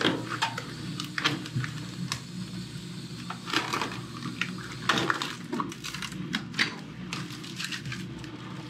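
Blue protective plastic film crackling and rustling as it is peeled off a stainless steel dishwasher front, in irregular crackles, over a steady low hum.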